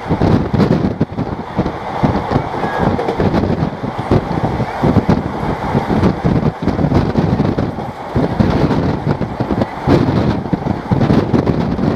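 Passenger train running, heard from on board: a steady loud rumble with irregular rattling from the coach's wheels on the track.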